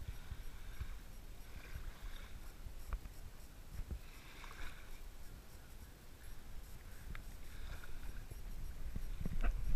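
Soft lapping of shallow water at the shoreline under a steady low rumble of wind on the microphone. It grows louder near the end, with a few small knocks and splashes as the camera is brought down to the water.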